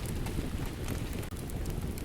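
Steady rain mixed with a crackling wood fire, with scattered sharp pops from the fire over a low, even rumble.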